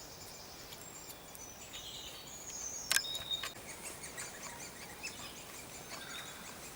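High, thin begging chirps of great spotted woodpecker nestlings calling from the nest hole while being fed, many short calls in quick succession from about four seconds in. A single sharp click about three seconds in is the loudest sound.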